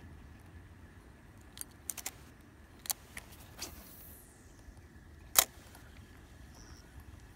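Small sharp clicks and taps of fishing tackle being handled: several scattered over a couple of seconds, then one louder knock about five seconds in, over a low steady rumble.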